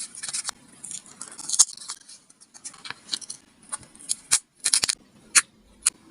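Paper being handled and crinkled in a paper craft, with irregular crackles and sharp clicks. The loudest click comes near the end.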